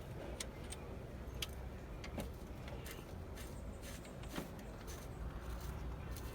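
Scattered light clicks, taps and knocks of a speedometer cable and car parts being handled during installation, over a steady low hum.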